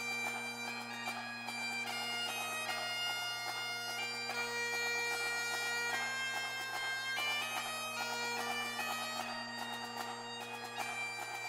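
Instrumental background music: a melody of changing notes over a steady held drone.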